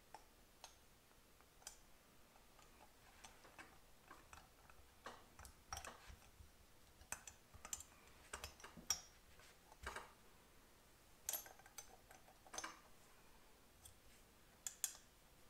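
Irregular light metal clicks and taps as a rocker arm and rocker shaft are fitted into the aluminium cylinder head of a 1973 Honda CL125 and the head is handled and turned on the bench.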